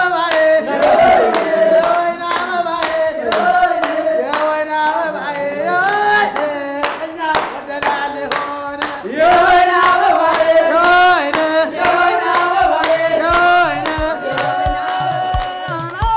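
Singing in a melismatic style, long held notes sliding up and down, with steady hand clapping keeping the beat.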